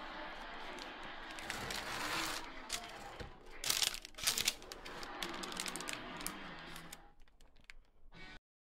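Silicone spatula spreading sticky marshmallow mixture in a parchment-lined metal baking pan: parchment paper crinkling and rustling along with scraping, with a few sharper crackles about four seconds in. The sound cuts off shortly before the end.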